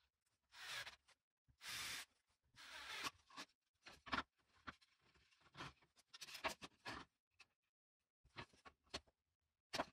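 Handling noise from fitting a plastic vent grille to a board: three short rubbing, scraping sounds in the first few seconds, then scattered light clicks and taps of plastic against wood.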